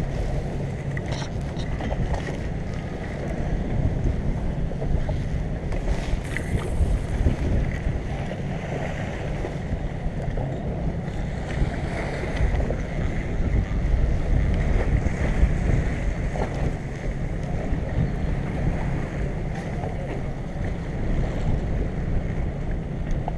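Wind buffeting the microphone of a chest-mounted GoPro on a boat at sea, a steady low rumble, with waves washing against the hull.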